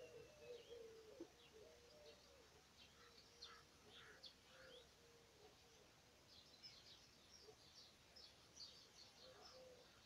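Spring birdsong: a dove coos in a steady run of low coos, while small songbirds chirp and sing in short high notes, busier in the second half.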